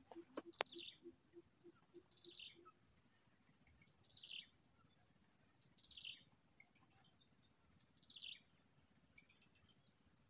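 Faint forest sound: a bird calls repeatedly, a short high falling call about every two seconds, over a steady thin high insect whine. In the first couple of seconds a low pulsing sound repeats about three times a second, and a single sharp click comes just over half a second in.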